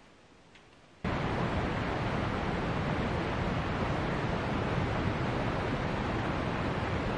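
Steady rushing of a mountain creek running under snow-covered boulders, starting abruptly about a second in.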